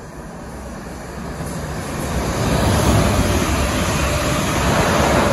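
Two coupled Class 444 Desiro electric multiple units passing at speed: a rumble of wheels on rail that builds over the first two or three seconds as the train approaches, then stays loud as the carriages go by.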